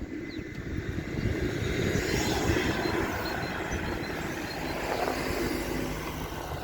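Wind buffeting the microphone with tyre rumble from a bicycle rolling fast downhill, building over the first two seconds.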